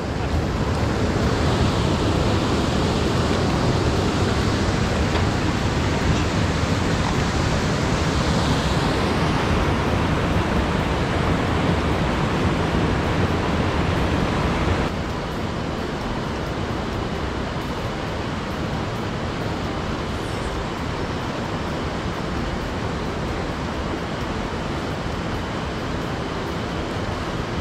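Mountain headwater stream rushing over boulders and through rapids: a steady noise of water that becomes a little quieter about halfway through.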